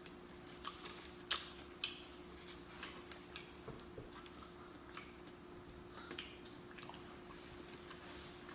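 Close-miked chewing with irregular wet mouth smacks and clicks, two sharper smacks about a second and two seconds in, over a faint steady hum.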